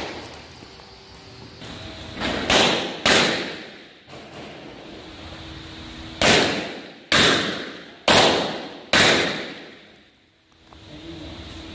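Pistol shots fired on a shooting stage: a pair about half a second apart, then a few seconds later four more spaced about a second apart. Each shot rings out with a long echo under the range roof.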